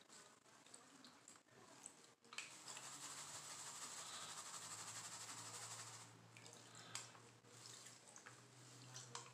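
Faint water swishing and trickling as a plastic gold pan is dipped and swirled in a tub of muddy water, strongest in the middle of the stretch, with a few light knocks early on. A low steady hum starts a few seconds in.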